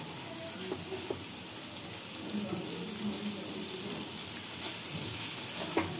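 Raw jackfruit sabzi sizzling softly in a kadhai while a wooden spatula stirs it, with a few light knocks of the spatula against the pan. The remaining water is being fried off so the dish ends up dry.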